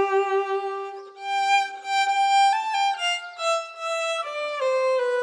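Violin playing a slow melody of long held notes that step from one pitch to the next.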